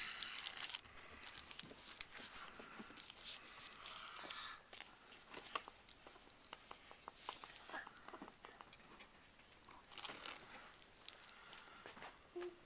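Faint, scattered small clicks and soft rustling of the sushi candy kit's small pieces and plastic tray being handled while a sushi roll is assembled.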